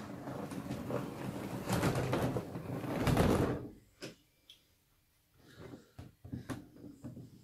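Model OO gauge Class 66 diesel locomotive running along the track, its motor and wheels making a continuous rumbling whirr that grows louder, then stops abruptly a little over three seconds in. It is followed by a series of sharp clicks and knocks as a hand handles the model on the rails.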